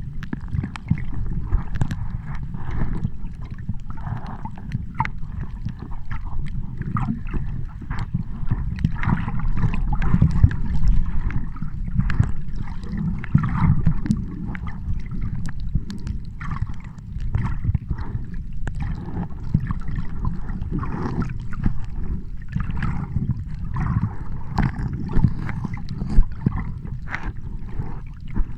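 Water sloshing and gurgling over a constant low rumble, with scattered small clicks and splashes.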